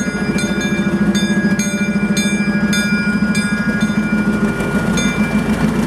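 Bell on a 1943 Plymouth locomotive ringing about twice a second over the steady running of its engine; the ringing stops near the end.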